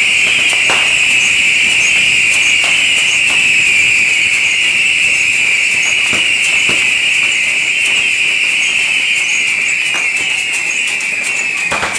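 Massed bottle rockets (Yanshui beehive rockets) launched from a barrel-type rocket fortress: one continuous shrill screech of many rockets at once, sliding slightly lower, with scattered sharp cracks, and it stops near the end.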